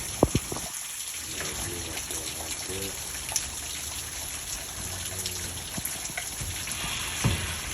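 Steady hiss of heavy rain pouring down, with two sharp knocks in quick succession about a quarter second in.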